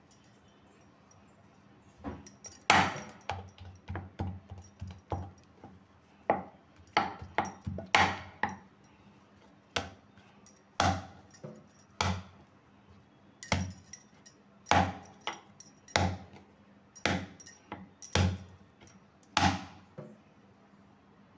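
Hands pinching off and rolling maida dough into small balls and setting them down on a wooden board: irregular knocks and taps, roughly one a second, starting about two seconds in, with a faint metallic jingle of bangles.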